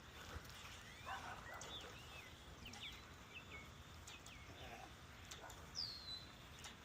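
Faint, scattered short bird chirps and quick whistles over a quiet outdoor background. A clearer falling whistle comes near the end.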